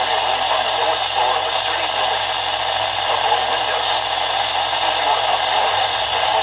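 Radio static: a steady, even hiss from a radio receiver.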